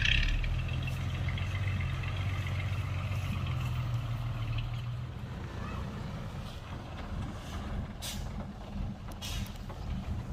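Heavy diesel earthmoving machinery running with a steady low drone that eases after about five seconds. Two short hisses come near the end.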